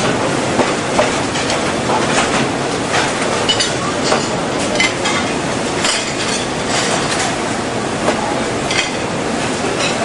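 Flight-type conveyor dishwasher running with a steady mechanical rumble, and frequent irregular clinks and clatter of china plates as they are set into its moving pegged belt.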